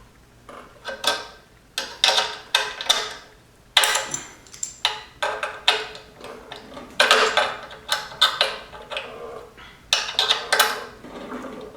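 Socket ratchet clicking in repeated short strokes while tightening a carburetor mounting bolt on a small mower engine, with the occasional clink of metal.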